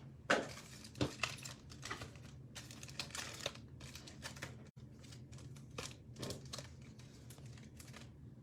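Plastic wrapping crinkling and tearing in irregular bursts as a sealed trading card box is opened and its packs are handled.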